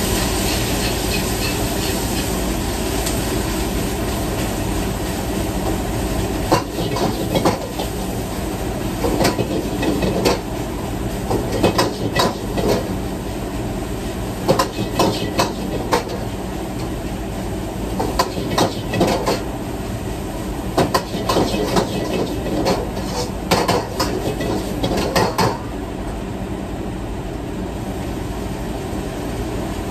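Metal spatula clanking and scraping against a steel wok in quick irregular strokes, stopping a few seconds before the end. Underneath is the steady noise of the commercial wok range and its exhaust hood.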